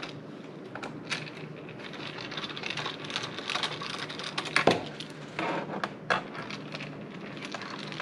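Small screwdriver turning out screws from the plastic bottom case of a Dell Inspiron 3000 laptop: a run of light ticks and scrapes, with a few sharper clicks, the loudest a little past the middle.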